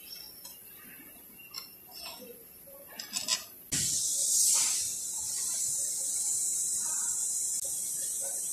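A few light metallic clicks and taps from hands and tools working on a disassembled automatic transmission, then a steady hiss that starts suddenly a little past the middle and keeps going.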